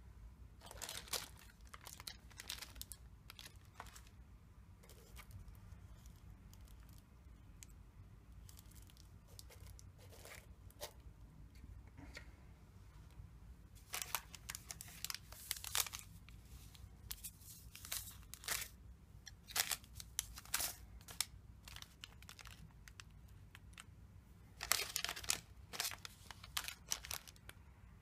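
Plastic wrappers and paper tea sachets crinkling as they are handled, in irregular bursts, busiest in the middle and near the end.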